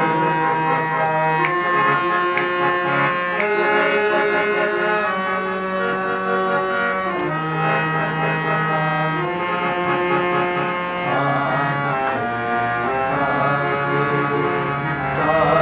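Harmonium being played: a melody of held reed notes over a low sustained drone note that drops out briefly now and then.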